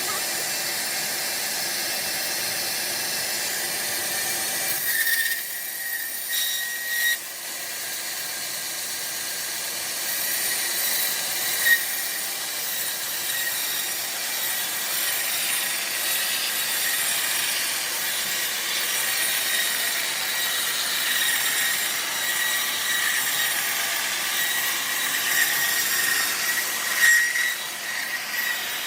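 Homemade band sawmill cutting lengthwise through a trembesi (rain tree) log, a steady high sawing noise with a faint whine. A few brief knocks come about five to seven seconds in and again near the end.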